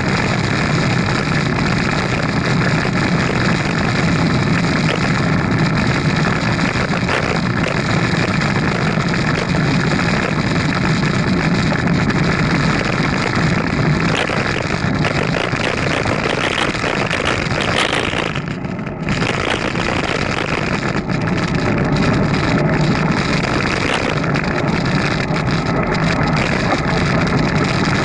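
Steady rushing noise of a moving bicycle ride, with wind buffeting the action camera's microphone over road and traffic noise. It dips briefly about two-thirds of the way in.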